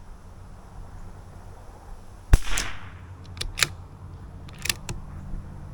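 A single .22LR rifle shot from a CZ457 bolt-action rifle a little over two seconds in, followed by a few quieter sharp clicks, typical of the bolt being worked to eject the case and chamber the next round.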